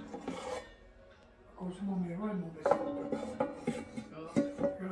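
Metal wire rack and nonstick pot of an air fryer clinking and knocking together as they are handled: a few sharp clinks, each with a short ring.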